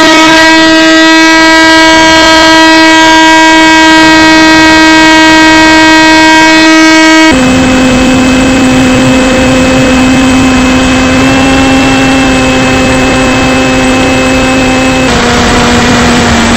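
Electric motor and propeller of a battery-powered RC plane, heard from the camera on board in flight: a loud, steady whine. About seven seconds in, the pitch drops as the throttle is eased back and the rush of air grows, and it steps a little lower again near the end.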